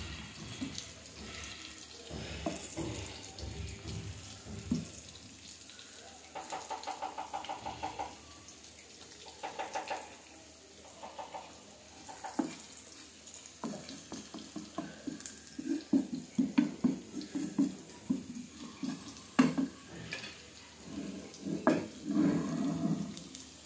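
Hilsa fish steaks sizzling as they fry in oil with sliced onions, with a wooden spatula scraping and knocking against the pan now and then. A quick rattling run of ticks lasts a couple of seconds about six seconds in.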